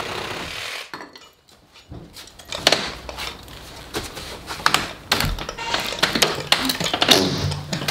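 A cordless power saw cutting through a timber post runs on and stops about a second in. After a short lull come irregular wooden knocks and clatters as the cut post is worked loose and pulled out.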